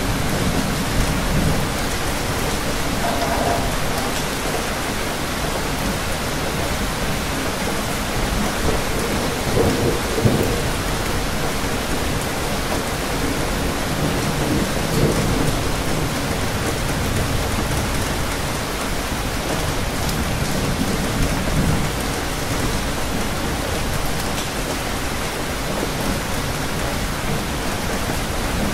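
Steady rain, an even hiss, with low rumbles that swell and fade several times.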